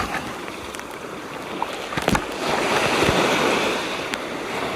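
Small waves washing in at the shore, one wash building about halfway through, with a couple of sharp knocks about two seconds in.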